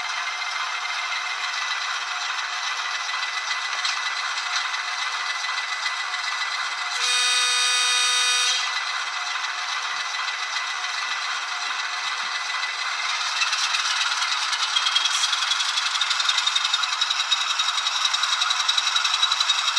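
Sampled ALCO 6-539T diesel sound from an ESU LokSound 5 Micro decoder, played through an 8x12 mm sugar cube speaker that gives it no bass. The engine idles, one horn blast of about a second and a half sounds about seven seconds in, and from about thirteen seconds in the engine revs up, louder and rising in pitch.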